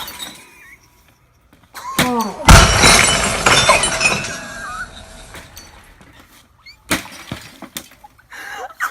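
A sledgehammer smashes into a TV about two and a half seconds in: a loud crash, like a bomb going off, with glass shattering and fragments crackling down as it fades over a couple of seconds. A short shout comes just before it, and another sharp hit comes near seven seconds.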